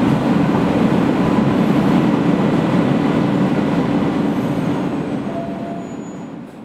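New York City subway train running along the track, heard from inside the car as a steady rumble of wheels on rail. It fades out over the last second or so.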